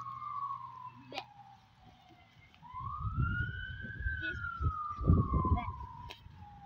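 Siren wailing, its pitch sliding slowly down, then up and down again in a cycle of a few seconds. From about three seconds in, a louder low rumbling noise comes and goes beneath it.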